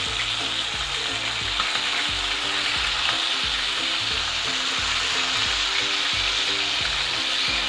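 Whole marinated chicken sizzling steadily in hot oil as it is lightly browned.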